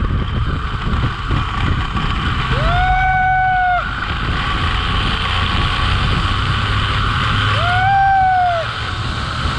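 Zip-line ride: a steady rush of wind and the trolley running along the steel cable, with the rider letting out two long, high screams, once about three seconds in and again near the end.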